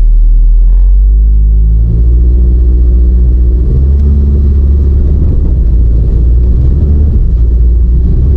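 Car engine revving under load, its pitch stepping up about two seconds in, over a heavy low rumble, as the car is driven out of soft sand onto floor mats placed behind the front tyres.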